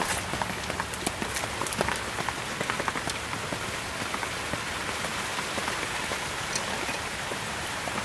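A steady hiss like falling rain. Light metal clicks come and go over the first few seconds as small screws are handled and set back into the front spindle by hand.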